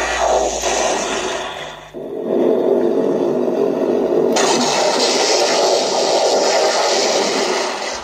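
Hasbro Spengler Wand's sound effects played loudly through a small portable speaker over an AUX cable: a continuous noisy blast that drops out briefly about two seconds in, then comes back, turning brighter about four seconds in.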